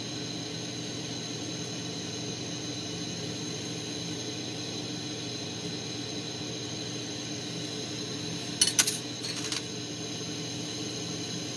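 Steady hiss and hum of a propane-oxygen glassworking torch burning with a small, pointed flame. A short run of sharp clinks comes about eight and a half seconds in.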